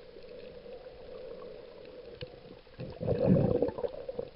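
Muffled water sloshing and gurgling around a camera held underwater, over a faint steady hum, with a louder rush of water about three seconds in.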